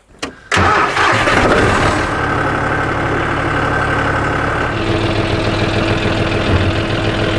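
John Deere 5065E tractor's three-cylinder diesel engine catching suddenly about half a second in, then running steadily at idle.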